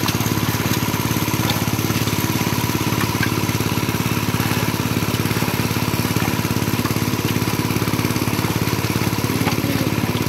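An engine running steadily at an even speed, a fast regular throb that doesn't change.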